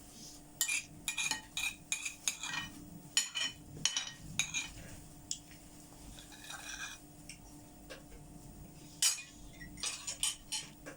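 Dishes and cutlery clinking and knocking together: a quick run of clinks over the first few seconds and another cluster near the end, over a faint steady hum.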